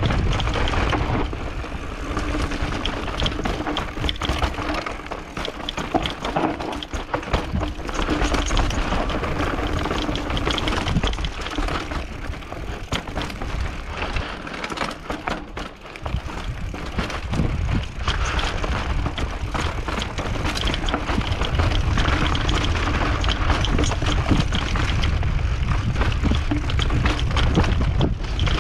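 Mountain bike riding down a dirt trail, heard from a helmet camera: wind buffeting the microphone, tyres on dirt and loose stones, and the bike's chain and frame rattling and clattering over bumps.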